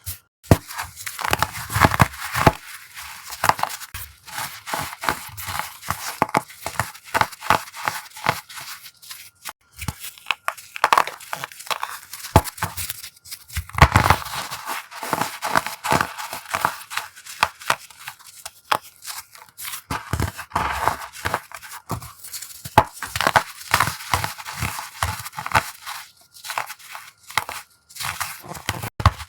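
Coloured pressed-powder blocks being crushed by hand, giving dense crunchy crackling with a slight squeak, in irregular clusters of sharp snaps that come and go.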